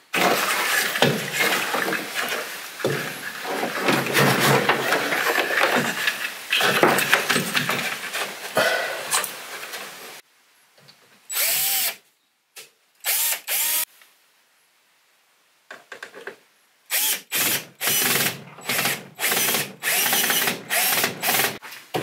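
Cordless drill-driver driving screws to mount a fuse block on a wooden stud. A long run of drilling and driving comes first, then two short trigger pulls, then a quick string of about seven brief bursts near the end as the screws are snugged tight.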